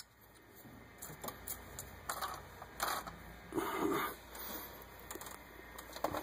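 Faint, scattered metallic clicks and scrapes of a 15 mm combination wrench being worked on an engine-front pulley bolt, a couple of them louder about two and three seconds in.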